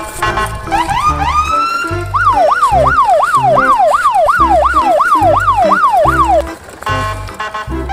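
Electronic siren wailing up and down quickly, about three sweeps a second for roughly four seconds, after a few short rising whoops. Background music with a steady beat plays under it.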